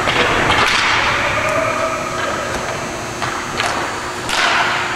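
Hockey game play: sharp hissing scrapes and slaps of skates and sticks on the playing surface, loudest right at the start and again about four seconds in, with lighter clicks in between.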